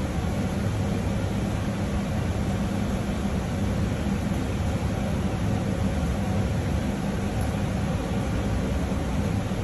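Steady rushing noise with a low, even hum from running commercial-kitchen machinery.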